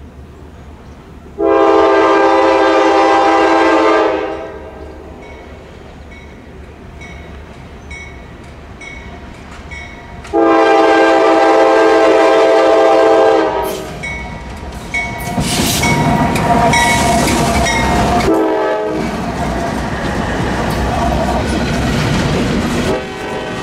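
Diesel freight locomotive's multi-chime air horn sounding two long blasts of about three seconds each, the first about a second and a half in and the second about ten seconds in. From about fourteen seconds in the locomotive passes close by, its diesel engine running and its wheels clattering over the rails.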